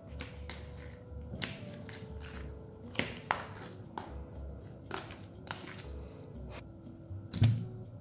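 Crunchy slime studded with coloured bits being worked out of its plastic tub by hand, crackling and popping in sharp, scattered clicks, with a louder, heavier thud near the end. Light background music throughout.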